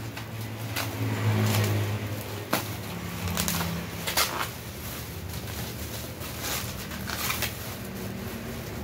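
Bubble wrap crinkling and rustling as hands pull and peel it off a boxed item, with sharp crackles at irregular moments, over a low steady hum.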